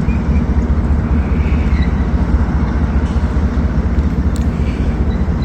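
Strong wind buffeting the microphone: a loud, ragged, steady low rumble.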